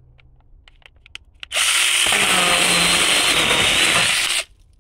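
DINSHARE 20V cordless mini chainsaw with a 4-inch bar. It starts about a second and a half in, its motor and chain running with a steady high whine, and cuts into a board for about three seconds before stopping suddenly. A few faint clicks come before it starts.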